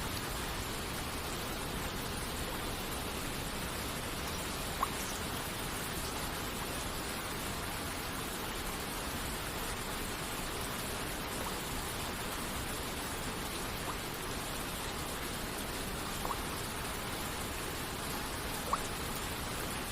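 Steady hiss of rain and a waterfall, with a few single water droplets falling now and then as short, clear drips.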